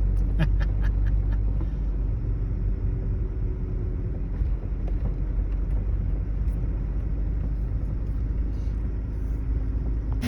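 A 1999 Toyota Tacoma pickup driving through deep fresh snow while towing a trailer: a steady, low engine and road rumble. A few faint clicks come in the first second and a half.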